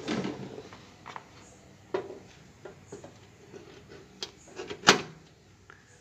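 A two-pin mains plug and its cord being handled and pushed into a socket: a few scattered clicks and knocks, the sharpest near the end.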